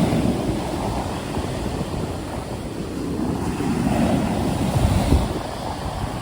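Stormy sea: waves surging and breaking in a continuous rumbling wash, with wind buffeting the microphone. The surf swells in loudness about four to five seconds in.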